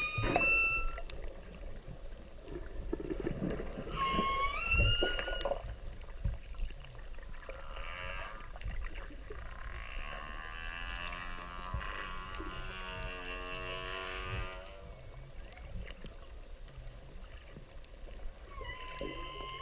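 Whale calls: short rising whistle-like calls at the start, about four seconds in and near the end. In the middle a long buzzing, pulsed call with many overtones.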